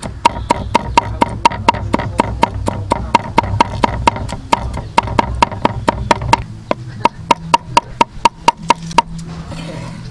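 A cleaver rapidly chopping garlic on a wooden chopping board: an even run of sharp knocks, about four a second, each with a short ring from the blade, stopping about nine seconds in.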